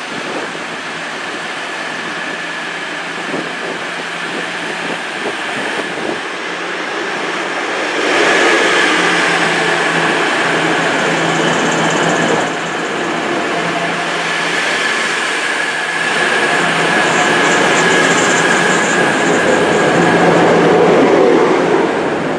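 East Midlands Trains Class 222 Meridian diesel multiple unit running along the platform, its underfloor diesel engines humming steadily under the rumble of the train. It gets louder about eight seconds in as the cars pass close by.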